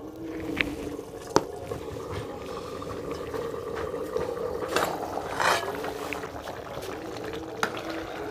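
Mutter paneer curry bubbling in a covered steel pot over a wood fire, with a few sharp clicks and a short metallic clatter about five seconds in as the lid is lifted off.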